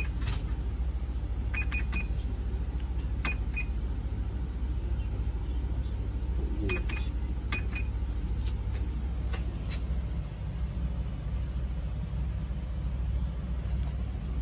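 Casio TE-340 electronic cash register keys being pressed, each press giving a click and a short high beep, in quick clusters of two to four during the first eight seconds and a couple of lone clicks after. A steady low hum runs underneath.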